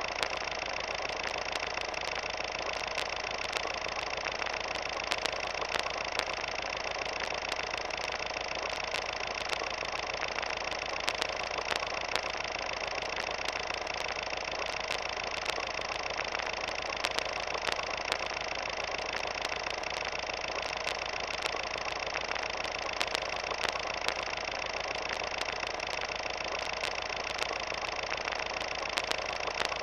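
Steady mechanical whirring with a cluster of fixed tones, and irregular clicks and crackle throughout: the sound of a film projector running.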